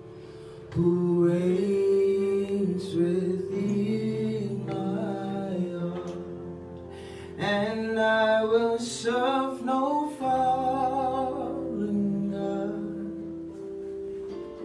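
Live worship singing: a voice sings a gospel song over held chords on an electronic keyboard.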